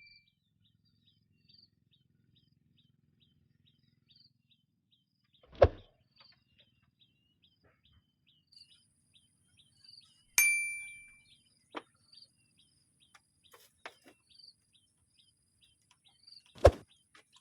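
A single sharp metallic ding rings out about ten seconds in and fades over about half a second, over a steady run of faint, high, evenly spaced chirps. Two dull knocks come about a third of the way through and near the end.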